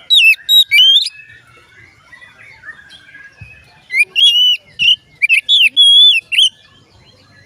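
Oriental magpie-robin (kacer) singing loud, clear whistled notes in two bursts, one in the first second and another from about four seconds to six and a half, with fainter chirping between.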